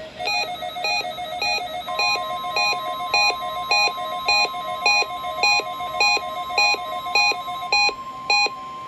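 Electronic weather-radio alert beeping, a pitched beep repeating about twice a second, set off by the NOAA Weather Radio Required Weekly Test. A steady high tone joins about two seconds in.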